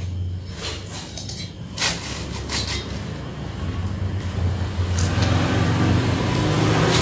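A child chewing and smacking on a mouthful of nasi kuning, with a scatter of sharp clicks, over a steady low rumble that grows louder in the last couple of seconds.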